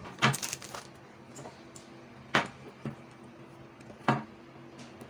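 A few sharp plastic clicks and knocks as a new panel air filter with a black plastic frame is handled: a quick run of clicks at the start, then single knocks about two and four seconds in.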